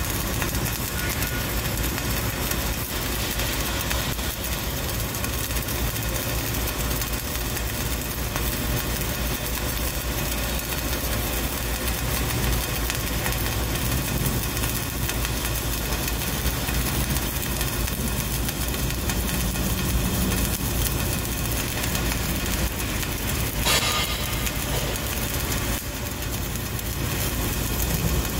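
Flux-cored arc welding arc crackling and sizzling steadily without a break as the wire burns in and spatters. One sharper crack stands out late on.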